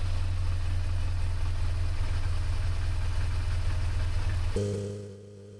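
BMW R1200GS air/oil-cooled boxer twin idling steadily just after start-up, its idle actuators locked for throttle body synchronisation. About four and a half seconds in, the engine sound gives way abruptly to a much quieter steady hum.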